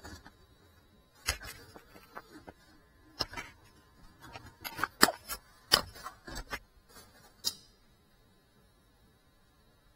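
A small indoor FPV whoop drone knocking and clattering as it crashes and tumbles near the floor. The clicks and knocks come at uneven intervals, loudest around five to six seconds in, and it goes quiet from about eight seconds on, with no propeller buzz left.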